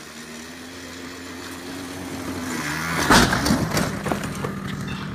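Small engine of a child's ride-on vehicle running steadily, its pitch shifting about two and a half seconds in. Just after three seconds comes a sudden loud burst of noise, and then the engine runs on.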